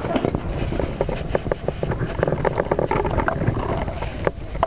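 Water splashing and sloshing in quick, irregular strokes close beside a raft, with wind rumbling on the microphone; the splashing dies down about four seconds in.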